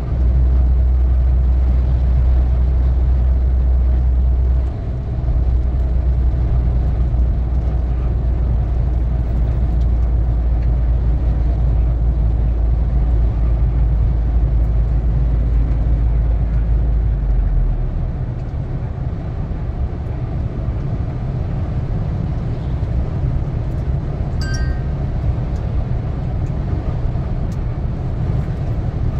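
Truck engine and road noise heard while driving, with a deep low rumble that drops away about two-thirds of the way through. A short high-pitched tone sounds once near the end.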